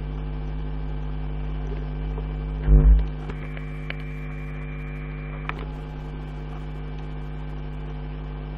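Steady electrical mains hum over background noise. About three seconds in there is a brief low double thump, the loudest moment, and a few faint clicks follow.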